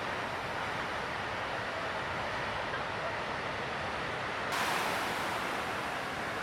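Steady rush of breaking surf and ocean wash, with wind on the microphone. About two-thirds of the way in, the hiss abruptly turns brighter.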